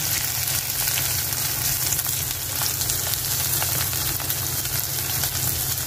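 Sliced red onions with whole spices sizzling and crackling steadily in hot oil, freshly added and frying toward golden brown as the base of a curry.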